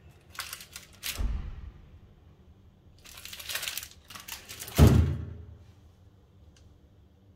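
Plastic wrapping around a roll of double-sided tape crinkling as it is handled, in two bursts. Each burst ends in a thump, the louder one about five seconds in as the roll is set down on a hard surface.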